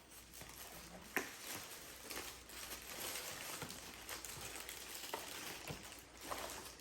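Paper food wrappers being unwrapped and handled, crinkling and rustling, with a few sharp clicks and taps; the crinkling is thickest in the middle.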